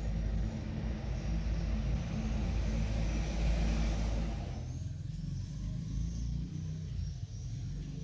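Low engine rumble of a motor vehicle, with a rushing noise over it that drops away about halfway through.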